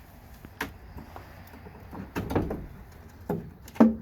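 Wooden beehive frames being pried loose and lifted out of a hive box, knocking and scraping against the wood. There are a few sharp knocks, the loudest near the end.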